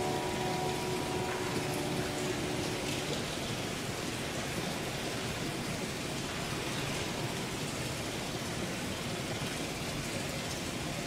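A held musical chord dies away in the first two to three seconds. A steady, even hiss fills the rest.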